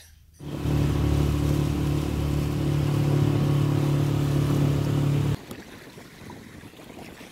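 Small outboard motor driving an inflatable dinghy across the lake, running steadily at one pitch. About five seconds in it cuts off abruptly, leaving faint wind and water noise.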